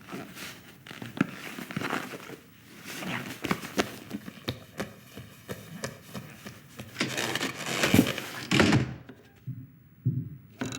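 Film foley sound effects: a busy run of knocks, thumps and rustling, loudest and densest from about seven to nine seconds in.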